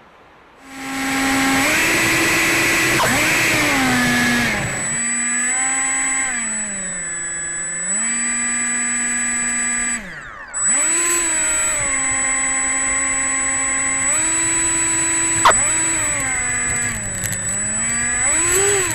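Electric ducted-fan motor of an RC jet running under changing throttle. It starts with a loud rushing whoosh, then becomes a pitched motor whine that glides up and down between held speeds over a steady high-pitched tone. It spools down almost to a stop about ten seconds in, then runs up again.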